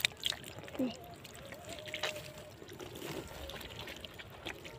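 Water trickling and splashing, with scattered small clicks and taps.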